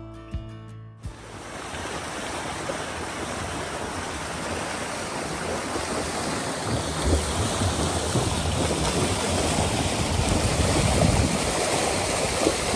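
Guitar music stops abruptly about a second in. Then water rushes and splashes along the hull of a sailing yacht under way, growing louder toward the end as the bow wave throws up spray.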